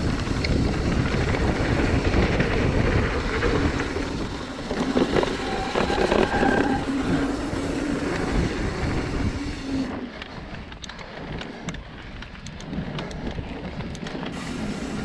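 Mountain bike ridden down a dirt singletrack, heard from a chest-mounted camera: wind buffeting the microphone over the rumble of tyres on dirt and the rattle of the bike. About two-thirds of the way in the wind hiss drops off, leaving quieter tyre rumble and scattered ticks and rattles.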